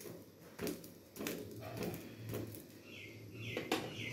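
A slotted spatula scraping and tapping on toasting bread and an iron tawa as ghee is spread over it, in a few short scrapes and soft clicks. Brief bird chirps come in near the end.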